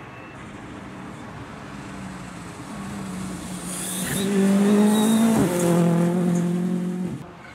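Ford Fiesta R5 rally car's turbocharged four-cylinder engine at high revs, growing louder as the car approaches and slides through a gravel corner. The engine note drops in pitch twice, with a brief hiss of gravel spraying from the tyres. It cuts off suddenly near the end.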